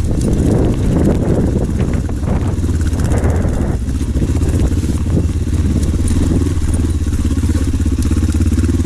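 Kawasaki KLE500's parallel-twin engine pulling steadily at low revs as the bike climbs a rocky trail. Clattering of tyres and suspension over stones during the first four seconds, then smoother running.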